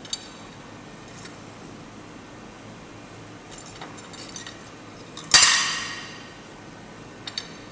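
Dishes and utensils being handled while a lunch box is packed: a few light clicks and clinks, then one loud clatter about five seconds in that rings out for about a second, and two more small clicks near the end.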